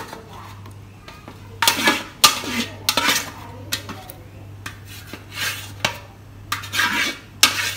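A spoon scraping and knocking against a metal pan in a run of uneven strokes beginning about a second and a half in, as cooked tomato pulp is scraped out into a mixer jar.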